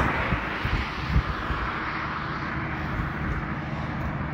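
Road traffic noise: the rush of a vehicle that has just gone past dies away right at the start, leaving a steady rushing hiss with a few soft thumps.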